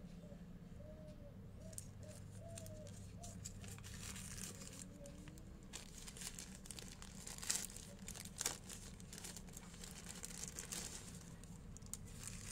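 Thin white paper wrapping crinkling and rustling as it is unfolded by hand, with two sharper crackles a little past the middle.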